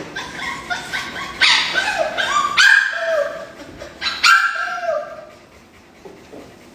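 Labrador yelping and whining several times while held down on its back, calls that rise and fall in pitch, loudest in the first few seconds and fading near the end; the dog is frightened at the vet.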